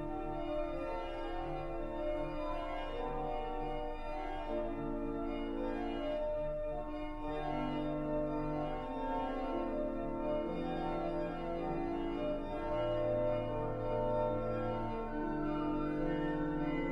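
Organ playing slow, sustained chords, the notes held for a second or two at a time over a slowly moving bass line.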